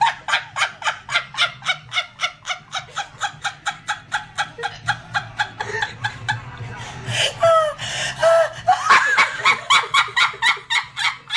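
A person laughing hard in quick breathy pulses, about four or five a second, with a few high pitched squeals of laughter partway through.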